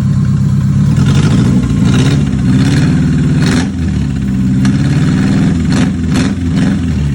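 Suzuki Futura 1.5-litre fuel-injected four-cylinder engine running, its steady note shifting a few times in the middle with short bursts of extra noise.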